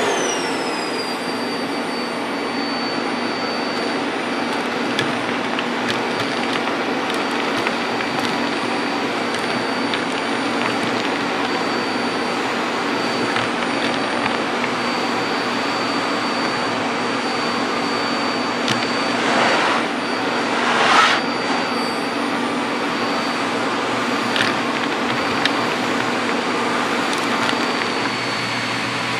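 Hitachi CV-KS8 canister vacuum cleaner running steadily, its motor giving a constant high whine over the rush of air through the hose. Two short louder surges come about two-thirds of the way through, as something is drawn up the hose.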